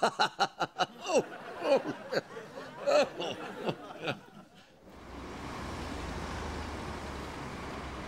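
A run of short, breathy vocal sounds from one person for about four seconds. From about five seconds in, a steady low rumble and hiss takes over.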